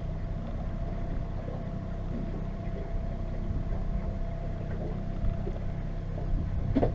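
Outboard motor running steadily at low trolling speed, a constant low hum with a faint steady whine above it.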